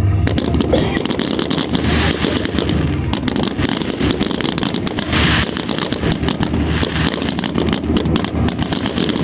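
Fireworks going off in rapid, unbroken succession: dense bangs and crackling overlapping one another.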